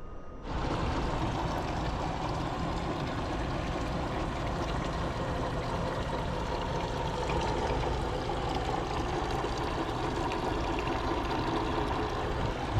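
Twin outboard motors running at low speed, with water washing and churning at the stern, a steady rushing sound that starts abruptly about half a second in.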